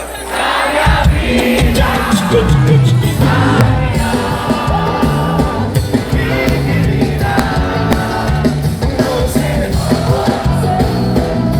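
Live forró band music with singing: a steady beat and bass line come in about a second in.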